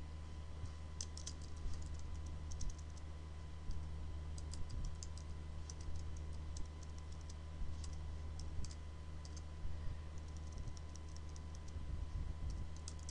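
Computer keyboard typing in short bursts of keystrokes, with pauses between them, over a steady low electrical hum.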